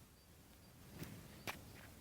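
Two faint, sharp knocks about half a second apart over a quiet background.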